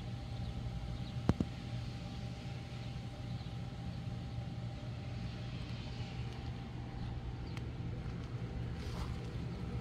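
Wind on the microphone, a steady low rumble, with a faint steady hum behind it and one sharp click about a second in.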